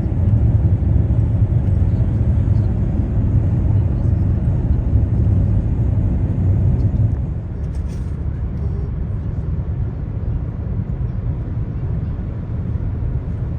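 Steady low rumble of a car driving, which eases slightly about seven seconds in.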